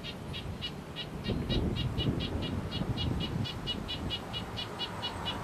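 A small bird calling a fast, even run of short high notes, about five a second, over a low rumble.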